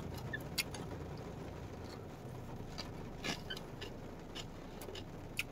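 Chewing dry, crunchy cheese-coated instant noodles eaten raw: small crisp crunches and crackles at irregular intervals over a steady low background hum.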